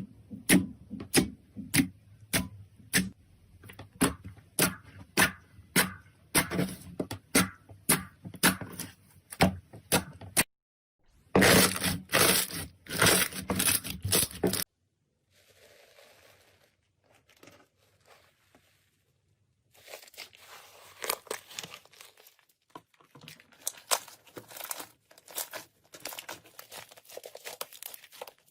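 Slime being pressed and squished by hand: a run of sharp pops about two a second, then a few seconds of dense crackling. After a near-silent stretch, more irregular crackling and popping.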